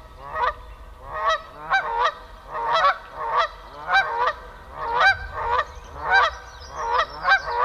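A flock of geese honking over and over, the calls overlapping at about two a second.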